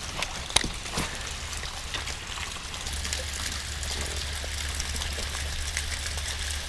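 Water trickling and pouring steadily over the edge of a small lake dam.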